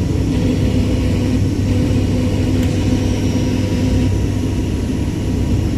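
Steady drone of an airliner's engines and rushing air heard inside the passenger cabin, a low rumble with a constant hum.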